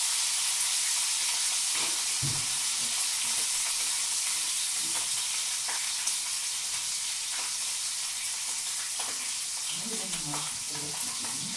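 Food sizzling in pans on a kitchen stovetop: a steady frying hiss with faint crackles.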